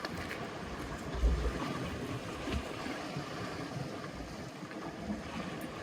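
Sea water washing and lapping against rocks, with wind on the microphone and a low bump about a second in.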